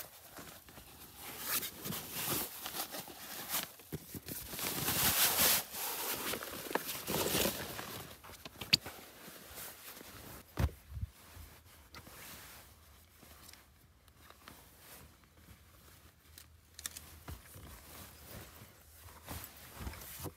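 Nylon sleeping bag rustling as it is pulled from its stuff sack and unrolled across a sleeping pad, loudest about five seconds in, with a couple of light knocks.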